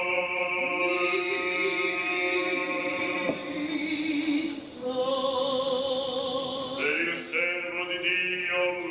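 Orthodox liturgical chant sung during the wedding service: long, held notes with a slow wavering vibrato, dipping briefly a little over three seconds in before a new note begins.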